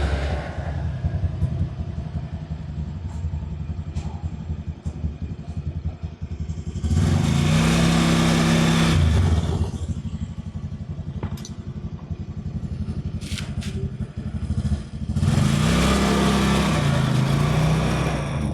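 Motor vehicle engine running on the move, speeding up and easing off twice with a loud rush of wind noise each time, about seven and fifteen seconds in.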